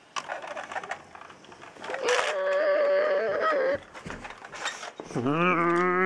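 A plastic toy car clatters as it is pushed by hand. Then comes a high, wavering wailing cry, and after it a long, lower cry that rises at first and then holds steady.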